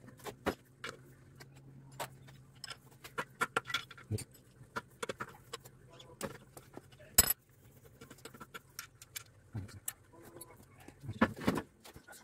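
Metal tools and parts clinking and knocking against a small single-cylinder engine's crankcase as it is taken apart by hand: scattered light clicks, one sharp clank about seven seconds in, and a cluster of knocks near the end as the cylinder block is lifted.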